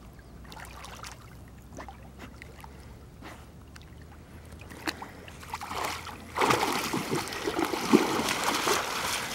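A dog splashing as it wades fast through shallow lake water, loud from about six seconds in; before that only faint trickling and lapping water.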